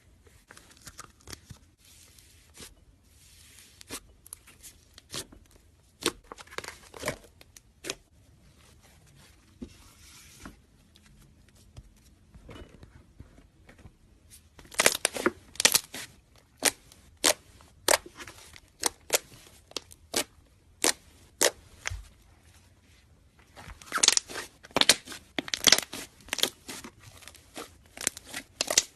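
Crunchy slime being pressed and worked by hand, giving sharp crackles and snaps. They are scattered at first, then come in quick dense runs about halfway through and again near the end.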